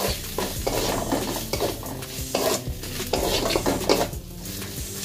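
Steel spatula scraping and clicking against an iron kadai as a tomato and spice paste is stirred, in repeated irregular strokes, with the paste sizzling as it fries.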